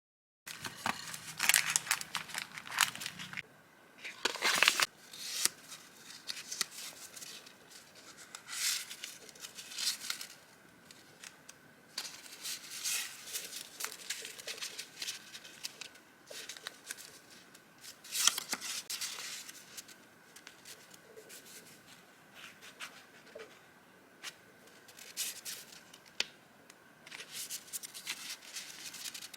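Vintage paper items being handled: paper rustling and crinkling in short, irregular handfuls, starting about half a second in.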